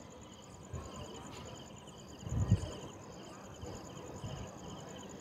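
Insects chirping in a steady rhythm, a high pulsed trill about twice a second. A low thump comes about halfway through.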